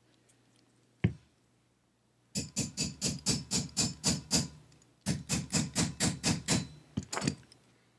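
A single click, then two runs of quick, even taps, about four or five a second, with a few more near the end: a tool being tapped to seat a plastic firing-pin channel liner in a Glock slide.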